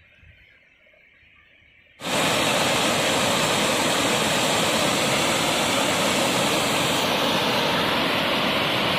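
Water rushing over a low concrete weir: a steady, loud rush that starts abruptly about two seconds in, after a faint, quiet stretch.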